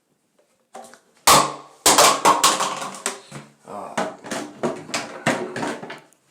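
Pipe pieces being handled, knocking and clattering against each other in a run of sharp knocks that starts about a second in.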